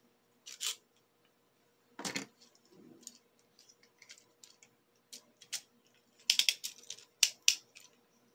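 Plastic Beyblade spinning tops clicking and knocking in a plastic Bey Stadium, with one of the two tops knocked away from the centre: scattered sharp clicks, the loudest knock about two seconds in and a quick run of clicks near the end, over a faint steady hum.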